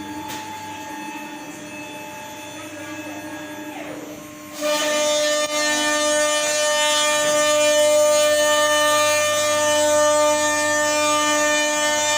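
CNC router running with a steady, pitched whine. About four and a half seconds in it jumps to a much louder, higher whine with a hiss over it, and it holds there.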